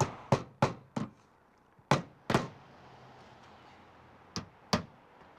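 Claw hammer driving nails through metal drip edge into the roof sheathing: sharp blows, four quick ones in the first second, then a pair about two seconds in and another pair near the end.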